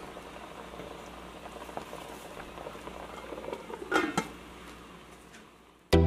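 Liquid simmering and bubbling with a soft crackle in a pan of fenugreek leaves. About four seconds in, an aluminium lid clatters down onto the pan with a brief metallic ring, and the bubbling goes quieter under it. Music with a beat cuts in right at the end.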